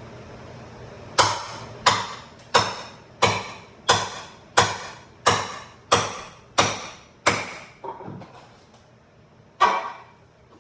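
Hammer blows ringing on metal, ten in a steady rhythm about one and a half a second, then a single last blow a couple of seconds later, as a bent wall fastener is worked free.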